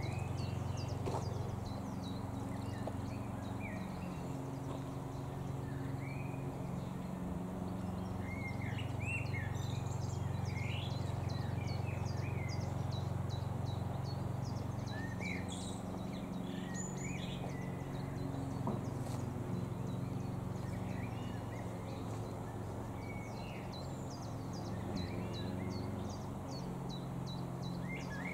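Songbirds chirping and calling in short, scattered notes, with quick ticking trills higher up, over a steady low drone.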